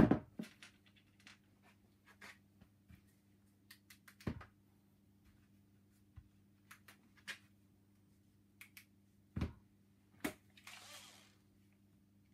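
Scattered light clicks and knocks from handling the plastic handle and screws of an opened steam vacuum cleaner during reassembly, with a few sharper knocks and a short rustle near the end, over a faint steady hum.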